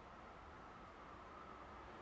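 Near silence: a faint, steady outdoor hiss beside an empty railway line, growing very slightly louder toward the end.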